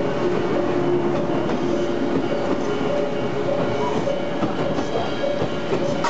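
Odakyu 20000-series RSE express train passing close by at a station level crossing, its wheels clicking over the rail joints. The crossing's warning bell rings throughout in two alternating tones.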